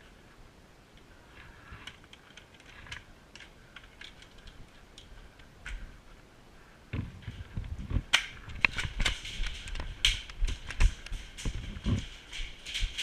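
Footsteps and rustling gear of a player on the move: faint scattered ticks and rustles at first, then from about seven seconds in a louder, irregular run of thumps and clicks as the steps quicken.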